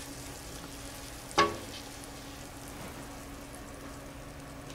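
Butter sizzling steadily as it melts and foams in a stainless steel frying pan, being heated almost to browning. One short, sharp tap comes about a second and a half in.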